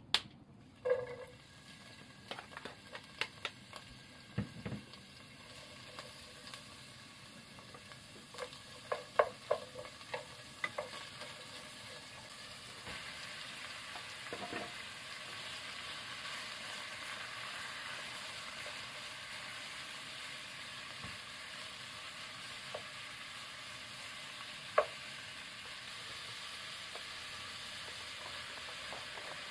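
Sliced pork frying in oil in a non-stick pot. A scatter of clicks and knocks comes over the first ten seconds or so as the meat goes in, then a steady sizzle swells from a little before halfway, with one sharp knock near the end.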